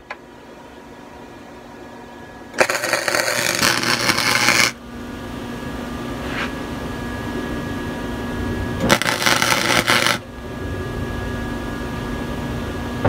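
Wire-feed (MIG) welder tacking a steel frame piece: two bursts of welding crackle, the first about two seconds long and the second just over a second, with a steady low hum between them.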